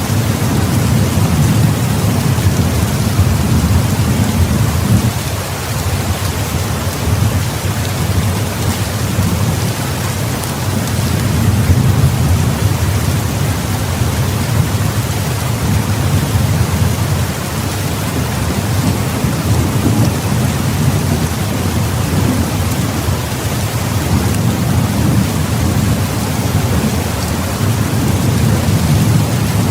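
Heavy rain pouring steadily, with a low rumble of thunder underneath that swells and eases.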